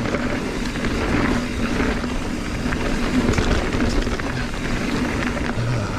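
Mountain bike rolling down a dirt trail: a steady rumble and rattle of the tyres and bike, with a low steady drone from the front disc brake, which is making a terrible noise under braking.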